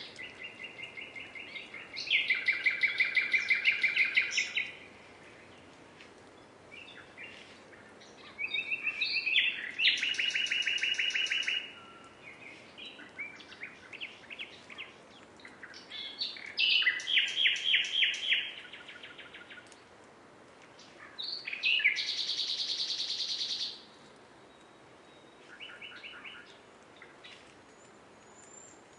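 Nightingale singing: four loud phrases of fast repeated notes, each lasting two to three seconds, with quieter, scattered notes in the pauses between them.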